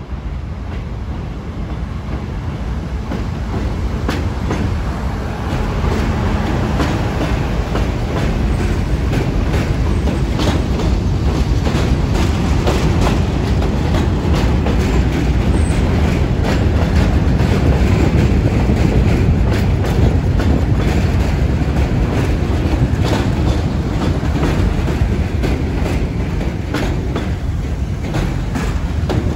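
R42 subway train running through an elevated station without stopping: steel wheels on rail make a steady rumble with many sharp clicks over the rail joints, growing louder over the first half as the cars pass close by.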